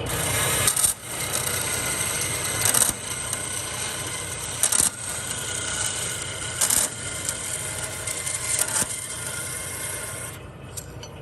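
Grob 4V18 vertical bandsaw blade cutting through a thick plate: a steady high, hissing scrape that grows louder and harsher about every two seconds, then stops as the cut finishes near the end.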